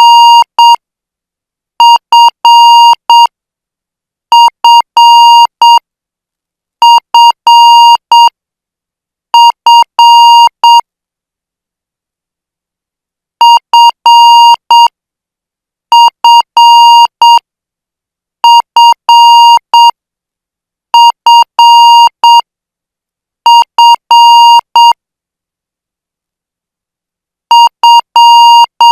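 Morse code practice at 8 words per minute: a steady beep near 1 kHz keyed into dots and dashes. Characters are spaced widely, about two and a half seconds apart, with a longer pause after every five, as in five-character code groups.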